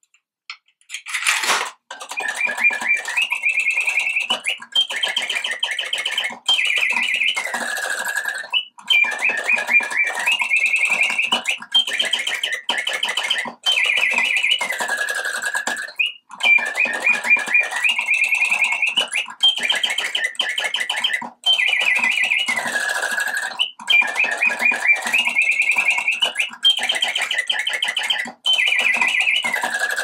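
Coin-operated singing bird automaton in a brass cage starting up about a second in, then singing through its bellows-driven whistle. It repeats fast trills and warbling phrases, some falling in pitch, in runs of two to three seconds with short breaks, over the steady whirr of its mechanism.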